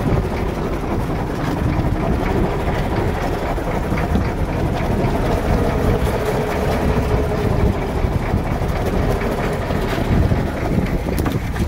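Fishing boat's engine running steadily, a dense low drone with a faint steady whine above it.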